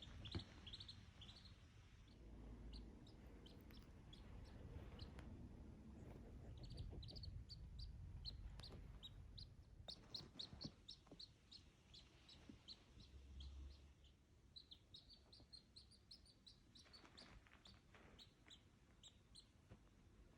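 A duckling peeping: faint, short, high chirps repeated in quick runs, with a low rumble in places underneath.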